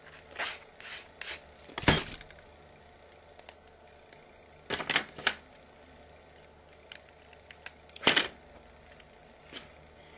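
Scattered sharp clicks and taps of a small screwdriver and small hard parts being handled, including a small motor: a few light ticks early on, the loudest click about two seconds in, a quick cluster around five seconds and another click around eight seconds.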